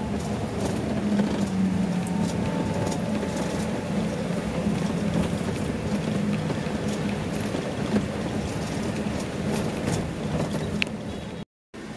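Scania K410 bus underway: a steady engine drone with road noise, occasional light rattles, and a brief high squeak near the end.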